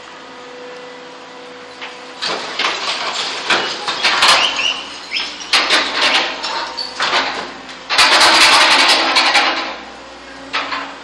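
Excavator and site dumper engines running steadily, then demolition rubble clattering and crashing as the excavator bucket drops it into the dumper's skip, with a series of impacts and the loudest, densest crash about eight seconds in, lasting a second and a half.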